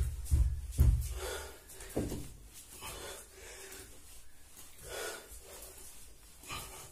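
Bare feet thudding on a hard floor about four times in the first two seconds, then a person's heavy breathing from exertion during kicking exercises.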